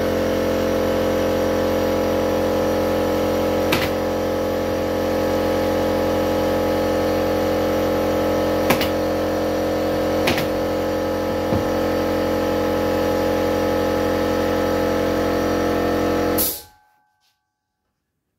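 Air compressor running with a steady hum, then shutting off suddenly about sixteen seconds in. Over it, four sharp single clicks of a pneumatic staple gun firing.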